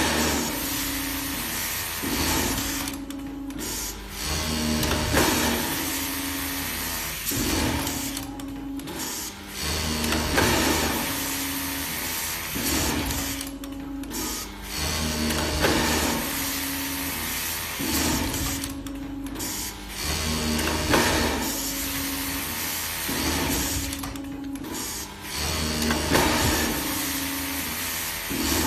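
Automatic glove sewing machine with a label attachment running in repeating cycles about every five seconds: the motor hums and stitches, then eases off briefly before the next glove.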